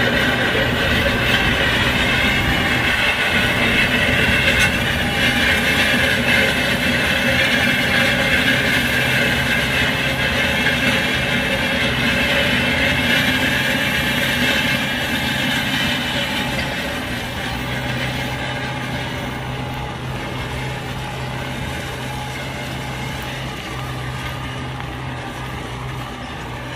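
Kubota M9540 tractor's four-cylinder diesel engine running steadily under load as it pulls a disc plough through dry soil. It grows gradually quieter over the second half as the tractor moves away.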